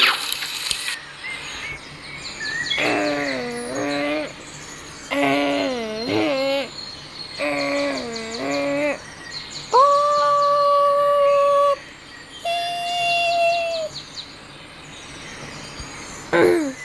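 A sequence of alert-style tones: three short warbling passages, then a steady tone held about two seconds and a shorter steady tone after it, as on a weather-radio emergency alert.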